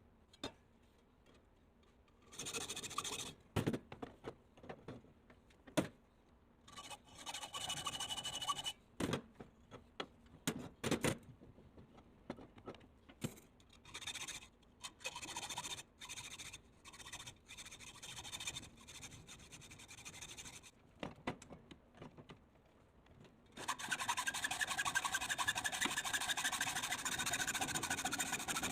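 Metal being worked by hand: irregular scraping and rubbing strokes with several sharp knocks, turning into continuous rubbing near the end.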